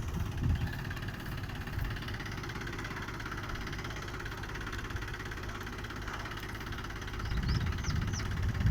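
An engine running steadily at idle, getting louder and rougher near the end.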